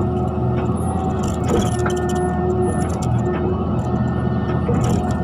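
A mini excavator's engine running steadily at a constant pitch, with scattered light clicks and knocks from the machine working.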